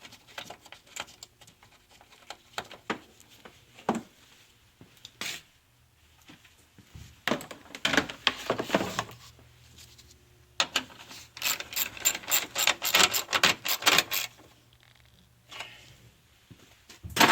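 Screw being driven in with a hand ratchet: scattered clicks and rattling handling of parts, then a run of rapid, even ratchet clicks lasting a few seconds, and a single loud knock at the end.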